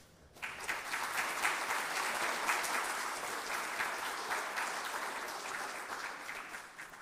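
A roomful of people applauding: the clapping starts about half a second in and fades away near the end.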